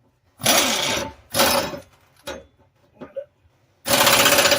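Pneumatic air ratchet tightening mower blade bolts: two short bursts, a couple of brief blips, then a longer, rapidly pulsing run near the end as the bolt is run down tight.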